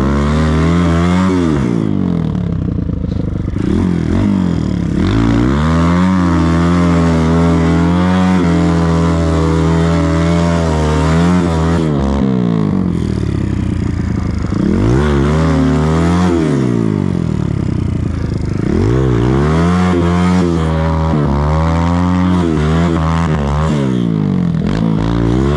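Kawasaki KLX140-based 170 cc big-bore single-cylinder four-stroke dirt bike engine with a BBR D3 exhaust, on-board, pulling through deep powder snow. It revs up and eases off over and over, holds higher revs for several seconds in the middle, then goes back to short surges.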